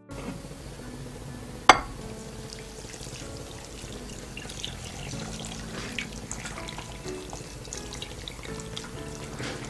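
Hot water pouring from a glass jug onto a block of frozen udon noodles in a glass bowl, a steady splashing stream that thaws the noodles. A single sharp clink comes about two seconds in. Background music plays along.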